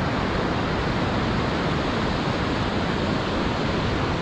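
Steady noise of surf washing onto a sandy beach, mixed with wind, with no distinct events.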